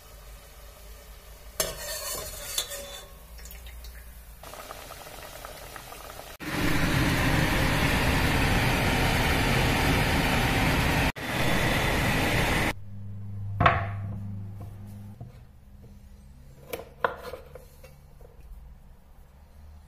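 Squares of chisulin dough deep-frying in hot oil in a steel pot: a loud, steady sizzle for about six seconds in the middle, with quieter sizzling and a few clicks before it. Near the end come a sharp knock and a few short knocks, as of a knife and utensils on a wooden cutting board.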